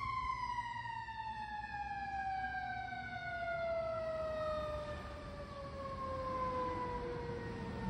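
Fire engine's siren winding down: one long tone that falls steadily in pitch from high to low, with low road noise underneath.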